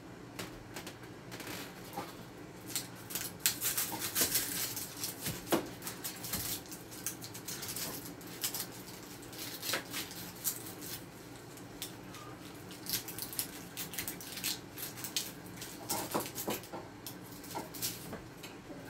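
An onion being trimmed and peeled by hand: irregular crinkly crackles and clicks of the dry onion skin, in two long clusters with a lull in between.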